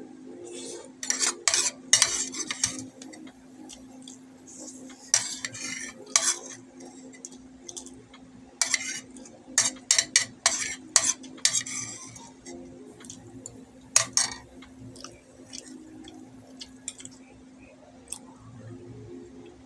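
Metal spoon clinking and scraping against a small bowl during eating, with close-miked chewing and mouth noises. The clicks and scrapes come in quick clusters over the first twelve seconds, then thin out. A steady low hum runs underneath.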